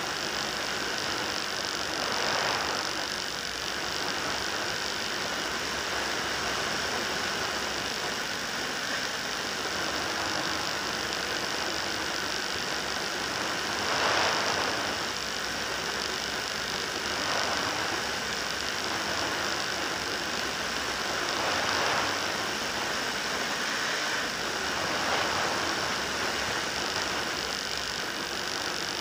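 FPV model aircraft's motor and propeller running steadily, heard through the onboard camera with wind rushing past. The sound swells briefly a few times.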